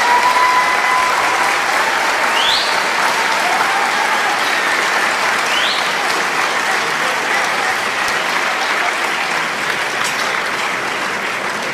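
A large audience applauding, with two short rising whistles from the crowd, slowly dying down toward the end.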